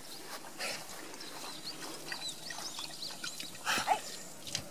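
Faint, high chirping calls of small birds, with one short, louder sound about three and a half seconds in.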